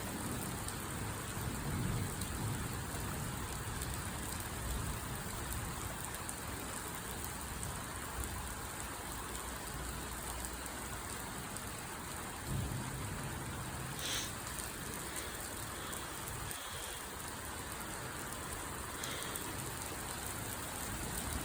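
Heavy thunderstorm rain falling steadily, with low rumbles of thunder swelling now and then.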